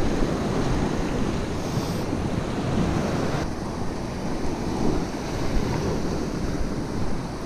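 Sea surf washing over rocks, with wind buffeting the microphone; the higher hiss eases a little about halfway through.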